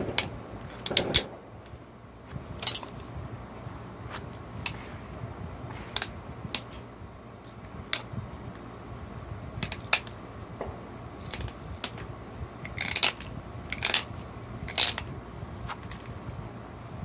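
Sharp clicks and snaps at irregular intervals as flakes are pressed off the edge of a cherry quartz slab with a hand-held pressure flaker, a few of them louder.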